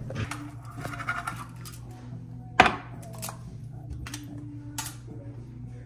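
A knife blade knocking and scraping against a cast-iron skillet and a glass jar as bacon grease is scooped into the pan, with a sharp clank about two and a half seconds in and lighter knocks around it.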